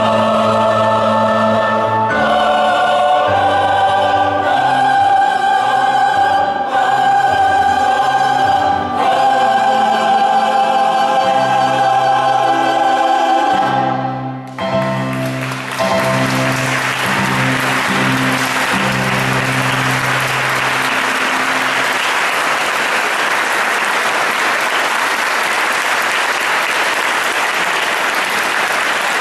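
Mixed polyphonic choir singing a sacred piece, closing on a long held chord that breaks off about 14 seconds in. The audience then applauds, with low held notes ringing on under the clapping for several seconds.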